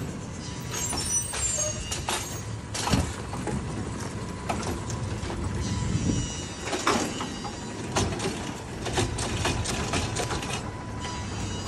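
Automated side-loader garbage truck's hydraulic arm gripping a wheeled recycling cart, lifting it and tipping it into the hopper, with the truck's engine running underneath. Several sharp knocks and clanks from the arm, cart and falling contents, over a thin steady whine.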